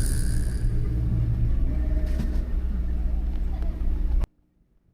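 Steady low rumble of a car driving, cutting off abruptly near the end.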